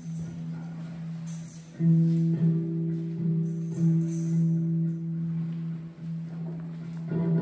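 Electric guitars holding long, sustained low notes that swell about two seconds in, with a few short tambourine shakes jingling over them.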